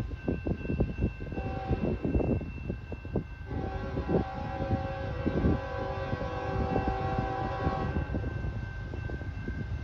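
Approaching freight train's diesel locomotive air horn sounding a multi-note chord in the distance: a short blast about a second and a half in, then a long blast from about three and a half to eight seconds. Gusty wind buffets the microphone throughout.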